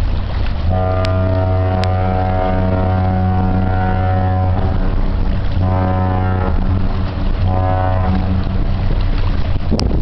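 The 1,000-ft freighter Presque Isle's ship horn sounds one long, deep blast of about four seconds, then two short blasts. Wind buffets the microphone throughout.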